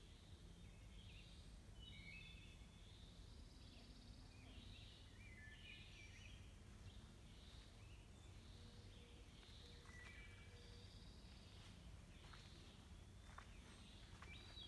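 Faint bird song from several birds: short chirps and warbled phrases at different pitches, overlapping and following one another.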